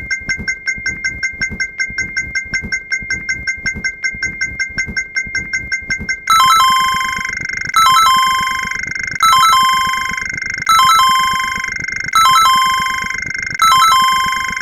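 Electronic ding sound effects marking a count: a rapid run of short beeping dings, about six or seven a second. About six seconds in it changes to a louder, layered chime that strikes every second and a half or so and fades between strikes.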